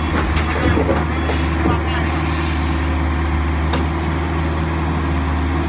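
Diesel engine of a Kobelco SK135SR excavator running steadily at close range, with a few knocks in the first two seconds and short hisses of air about one and two seconds in.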